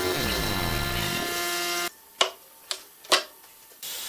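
Hollow-chisel mortiser's electric motor running with a steady hum for about two seconds, then stopping abruptly. Three sharp knocks follow, about half a second apart.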